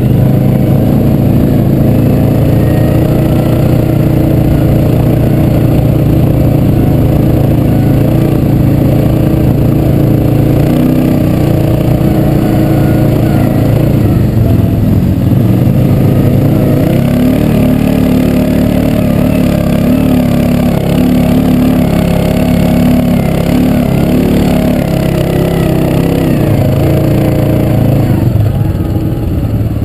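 ATV engine running under way on a dirt trail, its pitch rising and falling with the throttle as the rider speeds up and slows down.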